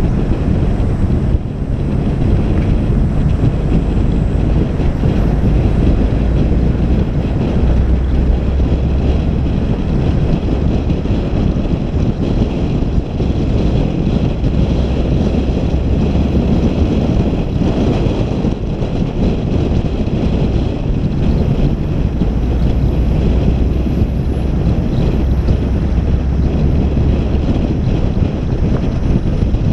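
Wind buffeting the microphone of a moving vehicle, over a steady low rumble that rises and falls slightly.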